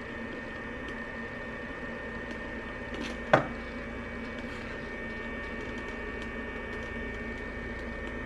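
Radio-frequency skin-tightening machine running with a steady electrical hum and a faint high whine, while its handpiece is held against the skin. A single sharp click about three seconds in.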